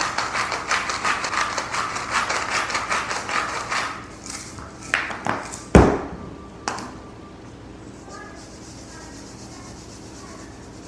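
A salt-and-pepper shaker shaken quickly over a bowl of ground venison: a fast, even rattle of about ten strokes a second for around four seconds. It is followed by three sharp knocks about a second apart as things are set down.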